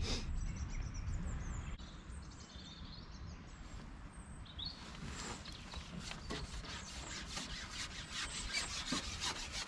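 Low wind rumble and a brief bird chirp, then from about five seconds in a run of rapid rasping clicks as the carbon fishing pole is moved, rubbing as it slides.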